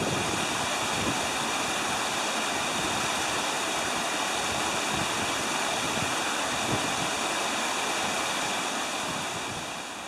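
A small mountain creek tumbling over boulders in a short cascade, a steady rush of white water that fades out near the end.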